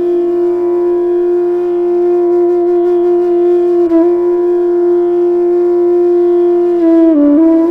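Carnatic music: a melody note held steady for about seven seconds over a soft steady drone, with a brief break about four seconds in and a step down in pitch near the end.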